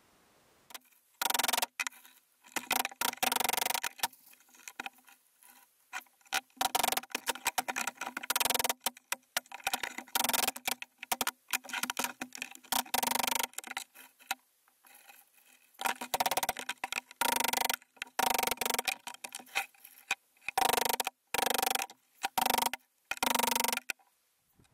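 Claw hammer driving nails into pine floor boards: many quick, irregular ringing strikes, coming in clusters with short gaps between.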